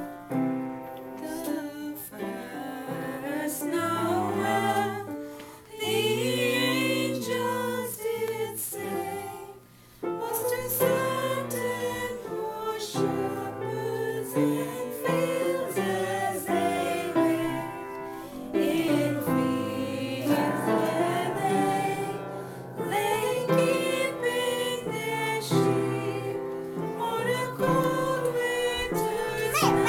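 Upright piano played by a child, accompanying a small group of mostly women's voices singing together, with a brief pause about ten seconds in.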